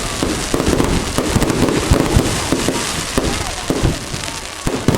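Fireworks going off: a dense run of bangs and thuds close together over continuous crackling.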